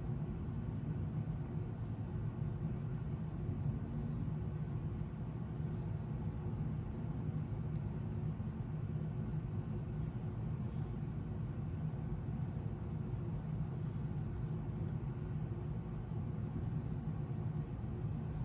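Steady low mechanical drone with faint steady tones above it, unchanging throughout.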